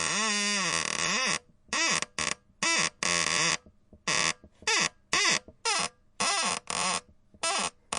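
Cartoon door-squeak sound effect: a creaking hinge squeak whose pitch wavers up and down. One long squeak lasts about a second and a half, then comes a quick run of about a dozen short squeaks with brief gaps between them.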